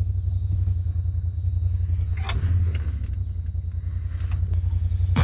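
Polaris RZR side-by-side's engine idling at a standstill, a steady low rumble.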